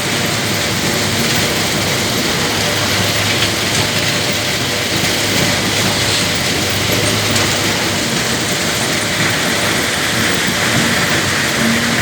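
Heavy diesel engine of an excavator running steadily, a low hum under a constant loud rushing noise.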